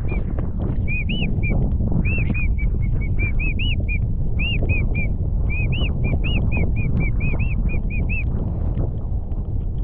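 A quick run of short, high whistled peeps, about three a second, each rising and falling, over a steady low rush of wind on the microphone.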